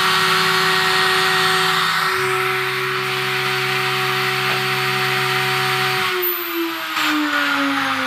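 CNC router spindle running at a steady pitch over the hum of the stepper motors driving the axes during an air cut, the hum changing about two seconds in. About six seconds in the spindle switches off and its whine falls steadily as it spins down at the end of the program.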